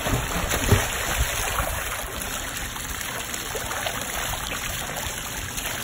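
Pool water splashing and churning as a child swims freestyle, kicking and paddling, with a louder splash about a second in.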